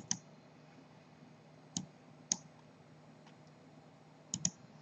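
Computer mouse clicks: a quick pair at the start, two single clicks in the middle and a fast run of three near the end, over a faint steady hum.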